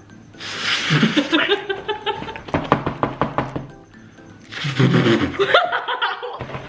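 Vocal sound imitation: two similar noisy, hiss-like bursts, each about two seconds long with a rising pitch, over light background music.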